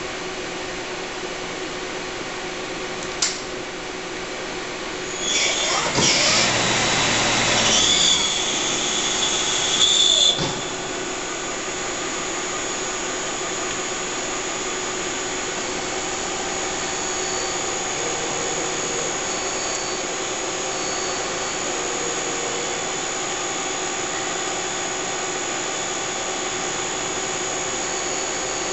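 Mazak ST-20 CNC mill-turn lathe powered up and running, with a steady machine hum and a faint high whine. A single sharp click comes about three seconds in. About five seconds in, a louder mechanical whir with a high whine starts up, then cuts off suddenly about ten and a half seconds in.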